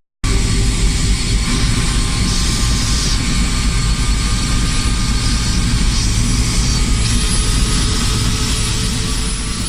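Helicopter with its doors off, running in flight: a steady, loud rotor and engine rumble with rushing air noise, cutting in just after a brief gap.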